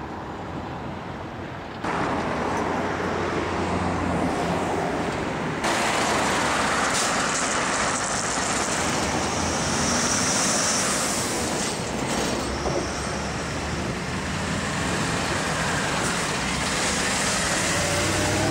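Heavy KAMAZ trucks and a NEFAZ city bus, running on compressed natural gas, driving past with steady engine and road noise. The sound changes abruptly twice in the first six seconds.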